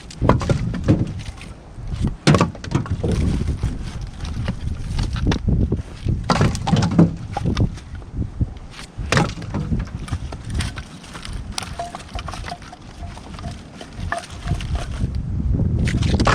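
Split maple firewood being tossed onto a load, the pieces knocking against each other in irregular wooden clunks.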